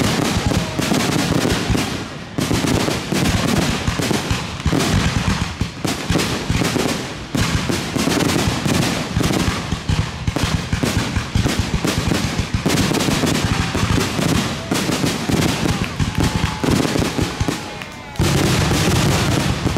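Aerial fireworks shells bursting in rapid succession, a dense, unbroken barrage of booms and crackling with hardly a gap, apart from a brief lull near the end.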